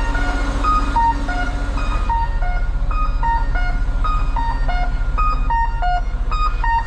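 Music: a simple melody of short, evenly spaced notes, about four a second, stepping up and down in pitch. Under it runs the steady low rumble of an idling truck engine.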